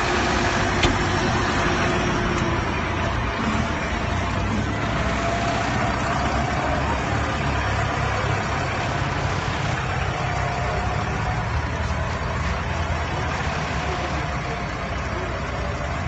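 Tractor engine running steadily at low revs as the tractor pulls a tanker through shallow floodwater, growing slightly fainter toward the end as it moves off.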